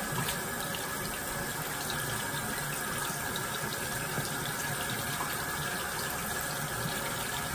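Water running steadily from a tap into a sink, used to wet the face.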